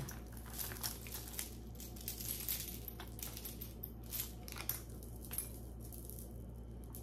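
Metal costume jewelry pieces clinking and chinking against each other in irregular small clicks as tangled pieces are handled and pulled apart; the clinks stop about five and a half seconds in.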